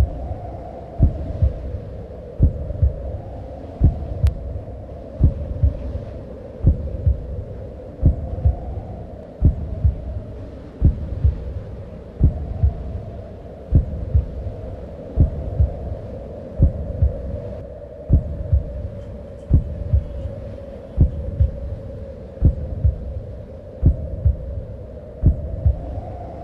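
Slow heartbeat sound effect: a double thump about every second and a half, over a steady droning tone that swells and fades gently.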